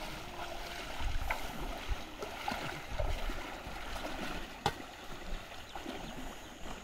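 Legs wading through a shallow river: irregular splashing and sloshing of water around the shins, over a steady wash of moving water. There is one sharp click a little under five seconds in.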